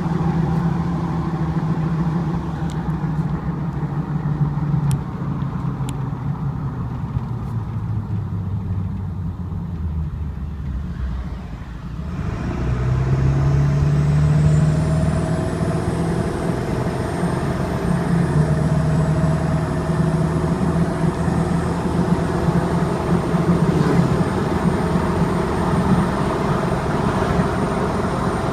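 2002 Ford 7.3 Power Stroke turbo-diesel V8 running. Its note sinks, then picks up and grows louder about halfway through. A thin, very high squeal then comes in and holds steady almost to the end.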